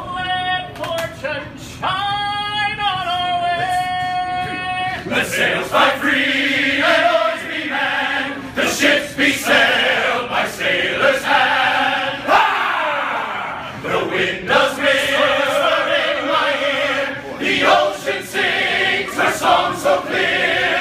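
Men's choir singing a cappella in full voice. A single high voice holds a note for the first few seconds, then the whole group comes in with a rhythmic song marked by sharp accents.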